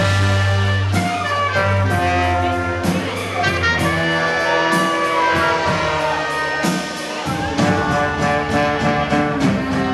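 Live band music with horns playing a jazzy number, with long held notes over a low bass line.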